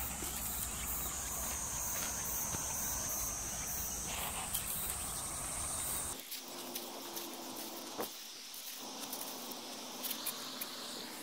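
Insects chirring steadily in a high pitch with a fast pulsing rhythm, a few faint rustles under it; about six seconds in the low background noise drops away.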